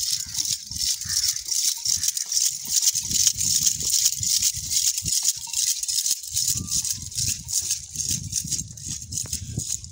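Small bells and metal ornaments on a decorated camel's harness jingling and rattling continuously as it walks, over an irregular low rumble.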